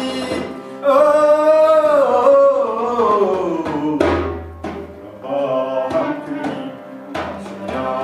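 Live Middle Eastern–style music on clarinet, harmonium and hand-held frame drum: a long melody line that bends and falls over a steady harmonium drone, with a deep drum stroke about four seconds in and lighter drum hits later.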